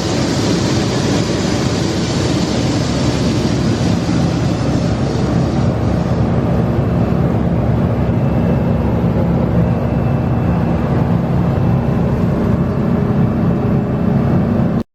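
Heavy harvest machinery engine running steadily at a constant pitch, with no revving. It cuts off abruptly at the very end.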